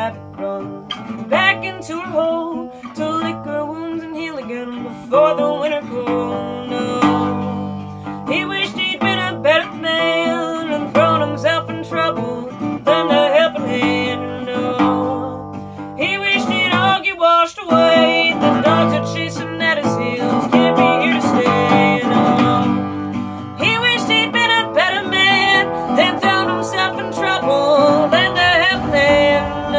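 A singer's voice over a resonator guitar played along, a slow solo song with guitar and voice together.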